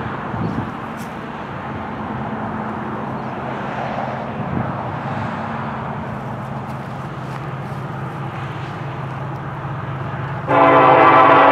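A steady low engine drone from an approaching diesel locomotive. About ten seconds in, the locomotive's air horn starts blowing loud as a chord of several notes, sounding for the grade crossing.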